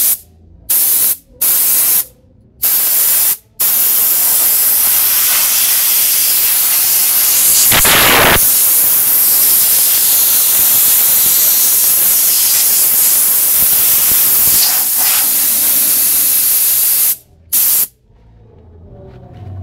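Compressed air hissing from a blow-gun nozzle, blowing dust out of a desktop computer case: four short blasts, then one long continuous blast, and a last short blast near the end.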